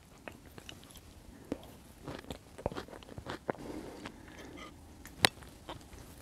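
Close-miked eating: chewing a mouthful of soft white beans in tomato sauce, with wet mouth clicks and a metal spoon scooping from a ceramic plate. A single sharp click about five seconds in is the loudest sound.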